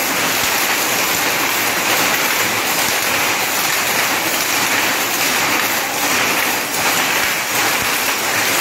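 Shuttle power looms, among them a 4x4 box loom, running together: a loud, steady, dense clatter of many overlapping beats.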